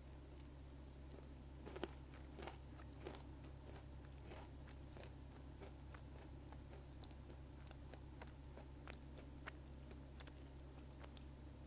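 Close-miked chewing of almond Pocky: a sharp crunch of the biscuit stick about two seconds in, followed by a few more crunches and then softer, scattered chewing clicks, faint over a steady low hum.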